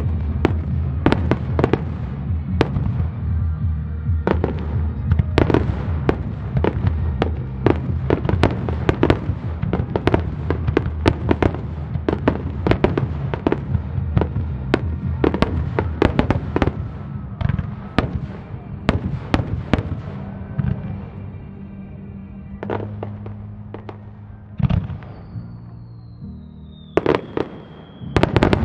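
Aerial fireworks shells bursting in rapid succession, a dense run of sharp bangs and crackles. The bangs thin out and grow quieter late on while a high whistling tone slides slowly down in pitch, then a new volley of bursts starts just before the end.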